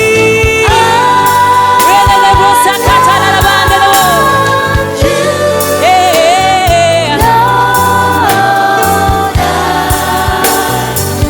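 Gospel worship music: singing in long held notes over a band with bass and drums.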